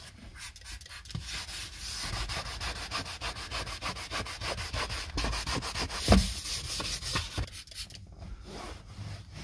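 Leather-cleaning brush with microfiber fingers scrubbing a leather car seat in quick back-and-forth strokes, several a second, with one thump about six seconds in. Near the end the scrubbing gives way to a towel wiping the seat.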